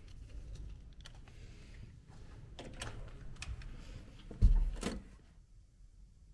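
Hotel room door with an electronic key-card lock being unlocked and opened: a string of small clicks and rattles from the card, lock and handle, then one heavy thump about four and a half seconds in as the door goes.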